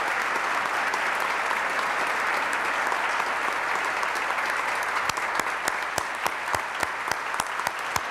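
Audience applauding: dense, steady clapping that thins out about five seconds in into scattered separate claps.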